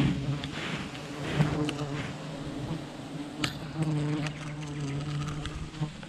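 Wild honey bees buzzing close to the microphone: a steady hum that swells and fades, with scattered short rustles and clicks.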